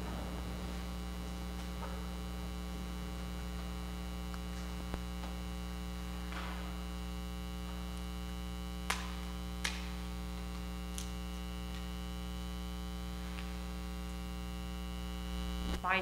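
Steady electrical mains hum with its overtones, with a few faint clicks about nine and ten seconds in.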